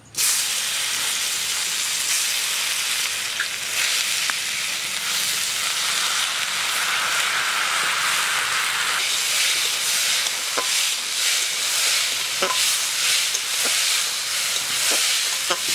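Red lentils (masoor dal) hitting hot mustard oil in an aluminium kadai, starting to sizzle all at once and then frying with a steady hiss as they are stirred. A few sharp clicks of the spatula against the pan come in the second half.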